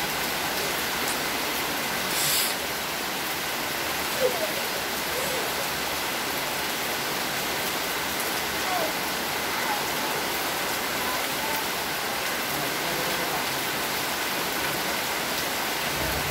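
Steady rain falling on wet paving and foliage, a constant even hiss. A single short knock stands out about four seconds in.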